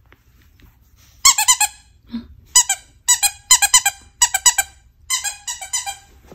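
Squeaker inside a plush can-shaped dog toy being squeezed again and again. The high-pitched squeaks come in about seven quick groups, starting about a second in.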